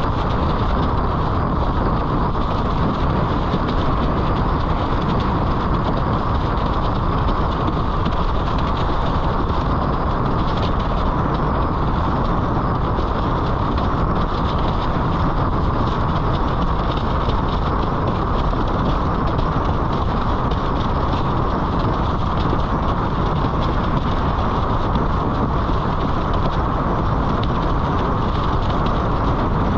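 Wind buffeting the action camera's microphone and a slalom windsurf board's hull rattling across chop while planing at about 55–60 km/h: a loud, steady rushing and rumbling with no let-up.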